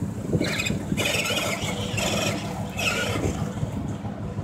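Small home-built Jeep on knobby four-wheeler tyres driving along: a low running rumble with irregular bursts of rattling, scraping noise.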